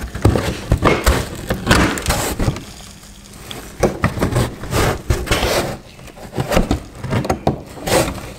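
Felt-faced plastic front wheel-well liner of a 2016 Honda HR-V being pulled back and worked loose by hand: an irregular string of scrapes, rustles and sharp knocks.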